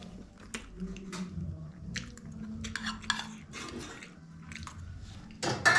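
Cutlery clinking and scraping against plates and bowls while eating, in scattered light clicks, with a louder burst of clattering near the end.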